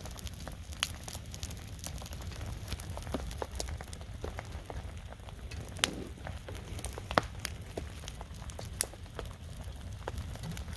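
Campfire burning on a bed of logs over wet ground, the wood crackling with irregular sharp pops over a steady low rumble.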